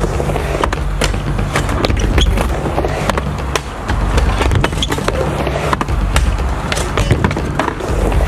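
Skateboard riding a wooden mini ramp: the wheels keep up a steady rolling rumble, broken by many sharp, irregular clacks of the board and trucks hitting the ramp and coping.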